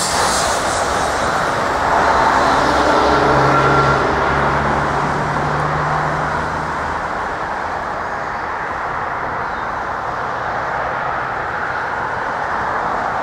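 Freight train's last boxcars rolling past and fading away, leaving a steady wash of outdoor traffic noise. An engine hums for a few seconds near the middle.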